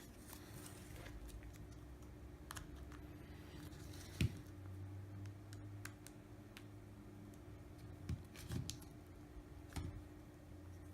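Scattered small plastic clicks and taps as a thin pry tool works the clips of an LG V20's back housing loose, the sharpest click about four seconds in, over a faint steady hum.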